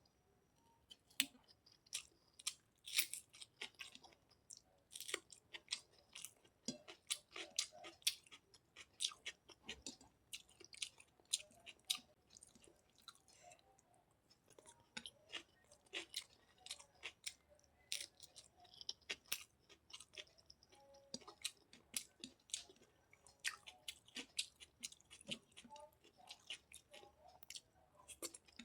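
Close-miked eating: a person chewing and biting, with many quick wet smacking clicks and small crunches, easing off briefly about halfway.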